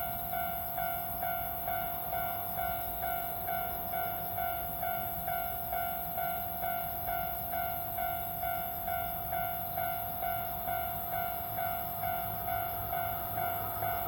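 Japanese railway level-crossing alarm ringing, its electronic bell striking about twice a second to warn of an approaching train. A low rumble starts to build near the end.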